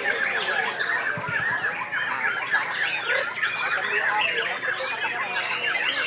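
White-rumped shama song: a fast, unbroken run of chirps, whistles and trills, with several birds singing over one another.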